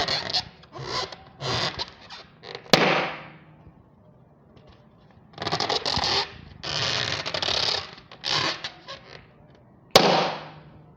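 Balloons: several short bursts of rushing air, then two loud sharp pops, one a little under three seconds in and one near the end, each trailing off over about a second.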